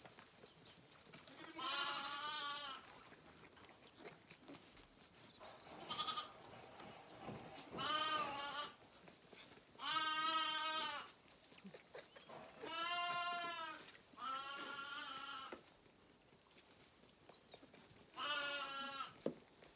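Young lambs bleating, a string of about seven calls a few seconds apart, each about a second long, one short one about six seconds in. The lambs are calling for their milk bottle at feeding time.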